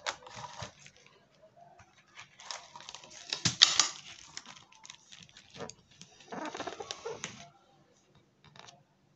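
Hands rubbing and handling a board covered in marble-pattern adhesive film: three bursts of rustling and scraping, the loudest about three and a half seconds in.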